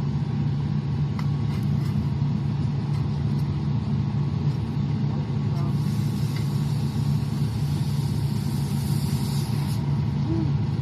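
Diesel engine of a concrete mixer truck running steadily. A high hiss of air lasts about four seconds from roughly midway.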